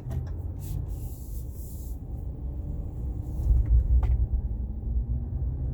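Low, steady rumble of a Ram 1500 pickup driving through a turn in 4WD Auto, heard from inside the cab. The rumble swells about three and a half seconds in, and there is one sharp click about four seconds in. The groaning, scraping driveline noise the owner is trying to catch is not prominent this time.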